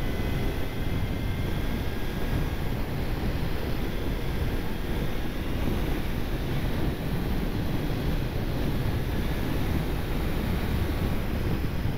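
Wind rushing over the camera microphone at road speed, with the steady running of a 1999 Honda CBR900RR FireBlade's inline-four engine underneath.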